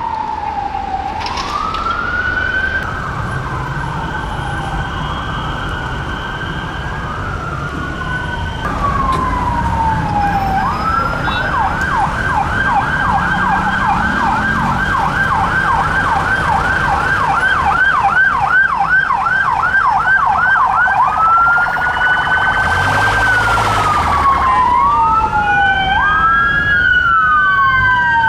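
Police car sirens in wail mode, slowly rising and falling, switching to a fast yelp for about ten seconds in the middle and then back to wail. A brief harsh burst comes near the end of the yelp, and in the last few seconds a second siren wails out of step with the first, over the rumble of traffic.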